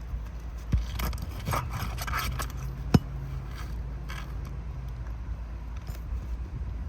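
Scraping and rubbing of a tool working under roof shingles, with scattered clicks and one sharp knock about three seconds in.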